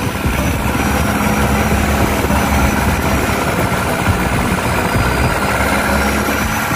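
Longtail boat engine running steadily while the boat is under way, a loud, unbroken drone.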